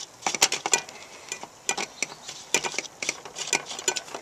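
Irregular light clicks and ticks of small screws, nuts and washers being handled and unscrewed by hand while taking a stove apart.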